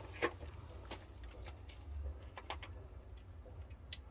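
Scattered light clicks and taps, one every half-second or so, over a steady low rumble; no engine is running.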